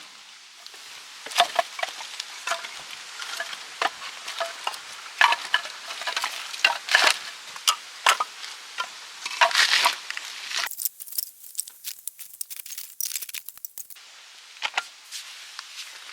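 Irregular clicks, light clinks and rustling, as of small objects being handled, with a few seconds of high hiss a little past the middle.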